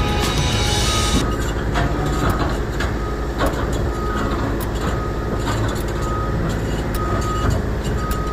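Caterpillar D9R bulldozer's diesel engine running, with a reversing alarm beeping at one high pitch about once a second. Scattered knocks sound over the engine.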